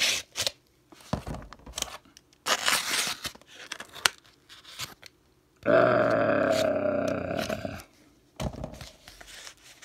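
Cardboard mailer being cut and torn open with a utility knife: a few short scraping, tearing noises, then a drawn-out steady tone of about two seconds past the middle, followed by more faint scraping.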